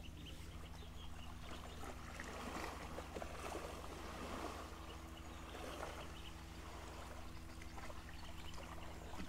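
River water lapping and trickling at the bank, with a steady low motor hum throughout.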